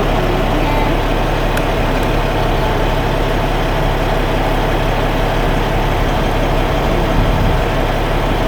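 Semi truck's diesel engine idling steadily, a constant low hum with a rattle of noise over it.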